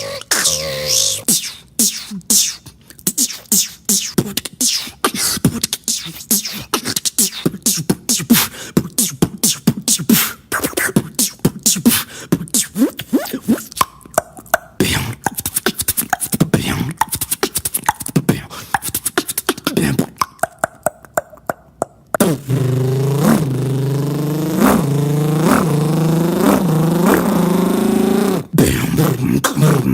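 A beatboxer making vocal sound effects with his mouth: a dense, rapid run of clicks and pops, then about two-thirds of the way through a switch to a continuous pitched buzzing tone pulsing roughly once a second.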